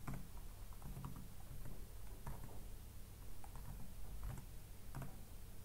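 Computer keyboard being typed on: single keystroke clicks, irregularly spaced, roughly two a second.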